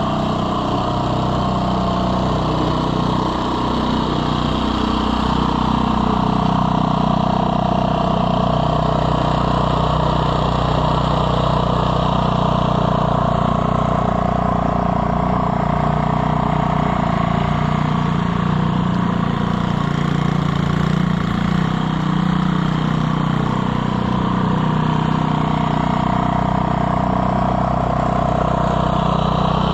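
The 3.5 hp Briggs & Stratton single-cylinder engine of a 1979 Gilson-built single-stage snowblower running steadily while clearing heavy, wet slush. Its note sags and recovers a little as it works.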